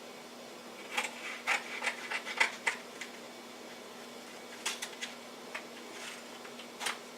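Aluminum foil duct tape crinkling and crackling as it is handled and cut from the roll, in a run of sharp crackles from about a second in, a shorter run near the middle and one more crackle near the end.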